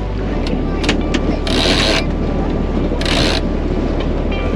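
A rope being hauled in around a sailboat's sheet winch: a few ratchet clicks, then two short rasping pulls of the line over the drum, about a second and a half apart. Steady wind and water rush from the boat under way run underneath.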